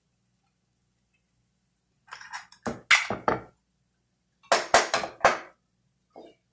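Kitchen clatter in two short bursts of clinks and knocks, about two and four and a half seconds in: a glass bowl set down on a wooden cutting board and a wooden spoon knocking against a frying pan as eggs are stirred into it.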